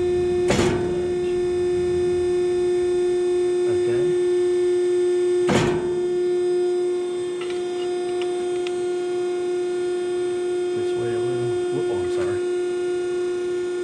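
A 65-ton Scotchman ironworker punching holes in steel bar: two sharp punch strokes about five seconds apart, the first about half a second in, over the machine's steady motor hum.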